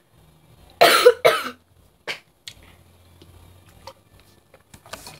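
A girl coughing severely: two loud coughs close together about a second in, then a few shorter, fainter coughs and catches. It is a sudden fit that she says is not from illness.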